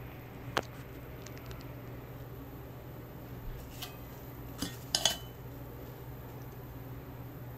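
Metal tongs and kitchen scissors clinking against a ceramic platter as braised semi-dried pollock is cut apart: a few sharp clicks, the loudest a double clink about five seconds in, over a steady low hum.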